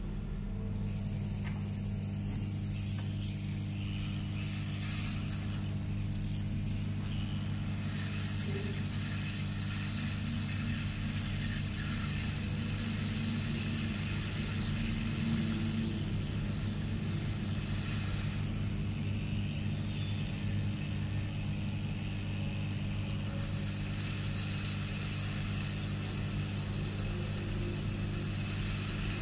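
Hot air rework gun blowing steadily on a circuit board, a low hum under an even airy hiss, as it heats solder to fit a surface-mount diode.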